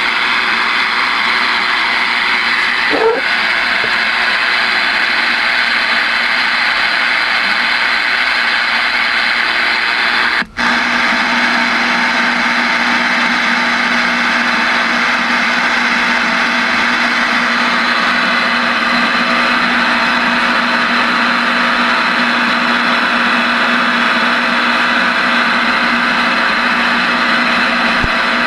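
Radio receiver static: a steady loud hiss from an open-squelch radio speaker. It cuts out for an instant about ten seconds in, after which a low steady hum runs under the hiss.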